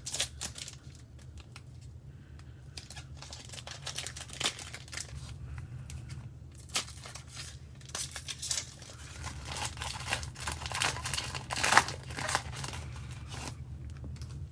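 Foil trading-card pack being torn open and its wrapper crinkled, with bursts of crackling and rustling that grow busier in the second half, the loudest crinkle about twelve seconds in. A steady low hum underneath.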